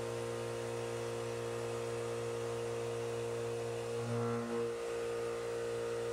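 CNC machining center spindle turning a 3/4-inch backdraft cutter at 3500 RPM, taking a light semi-finishing cut on the walls of a deep pocket in pre-hardened 4140 steel. It makes a steady hum that swells briefly about four seconds in.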